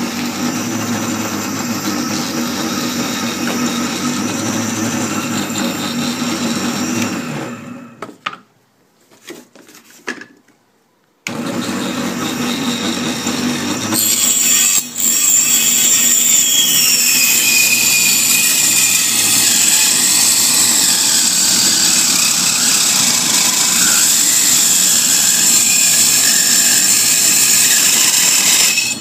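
A machine running with a steady mechanical noise; it cuts out for about three seconds, starts again, and runs louder for the rest.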